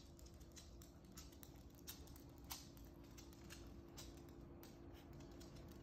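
Faint, irregular clicking of a small dog's claws on a wooden floor as it walks, over a faint steady hum.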